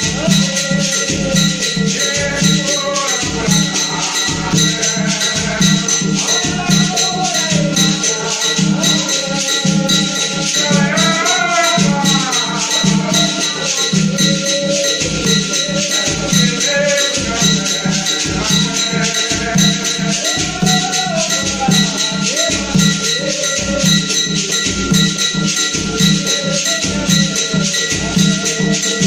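Tambor de Mina ensemble playing: drums beating a fast, steady rhythm with rattles shaking along, and voices singing a doutrina over it.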